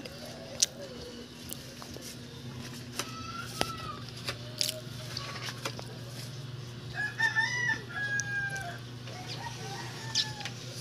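A rooster crowing about seven seconds in, with a few shorter chicken calls before it. Light clicks and scrapes from a putty knife working lacquer putty on the tabletop.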